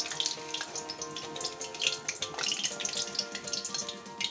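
Soft background music over the crackle of hot oil sizzling in a kadhai as fried jackfruit pieces are lifted out with a metal spoon.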